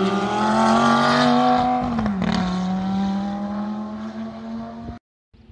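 Sports car engine accelerating hard past the listener, its pitch climbing for about two seconds, then dropping at an upshift and pulling on while fading away. The sound cuts off suddenly near the end.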